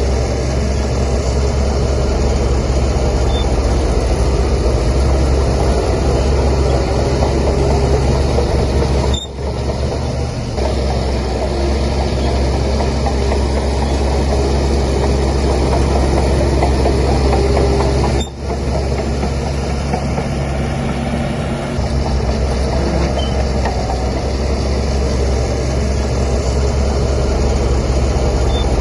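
Heavy diesel engine of a Shantui DH17C3 bulldozer running steadily under load, with a deep rumble. The sound drops out briefly twice, about a third and two-thirds of the way through.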